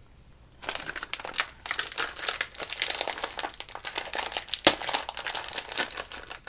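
Plastic blind-bag packaging crinkling as it is handled, a dense irregular crackle that starts about half a second in, with one sharp click about two-thirds of the way through.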